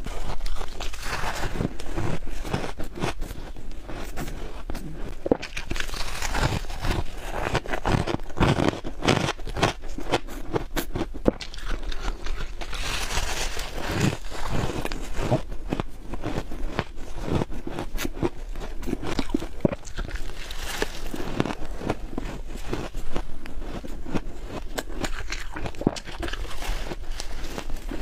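Close-miked bites into soft freezer frost, crunching and crackling one after another with no pause.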